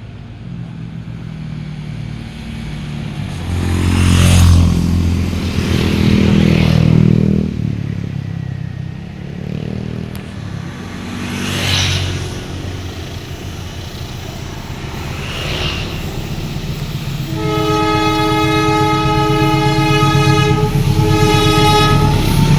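Train horn sounded as a chord of several notes: a long blast of about three seconds, a short break, then a shorter blast. Before it comes the heavy rumble of the train running past.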